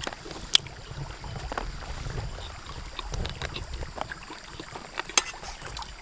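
Outdoor riverside ambience: a steady low rumble of the shallow river and breeze on the microphone, broken by a couple of sharp clicks, about half a second in and about five seconds in.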